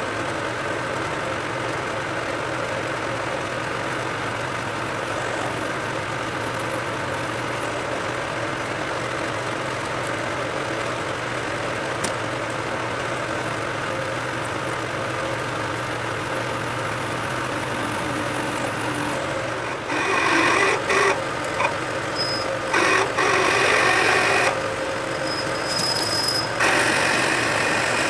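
Metal lathe running steadily, its motor and gearing turning the chuck while a centre drill in the tailstock spots the end of a metal workpiece. About twenty seconds in the sound gets louder and rougher, starting and stopping, with short high squeals as a twist drill cuts into the metal.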